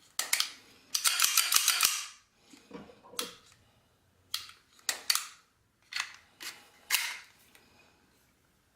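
Sig Sauer P232 .380 pistol being worked by hand just after reassembly: a series of sharp metal clicks and snaps, with a denser sliding rattle lasting about a second near the start.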